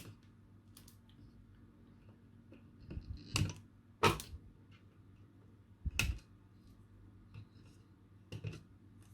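Wire cutters snipping off the excess wire legs of freshly soldered resistors on a small circuit board: several sharp snaps a second or more apart, the loudest about three, four and six seconds in.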